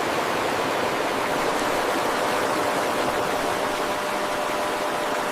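Steady, loud rushing noise, even across the range with no rhythm or breaks, like running water or wind, with faint steady tones beneath it.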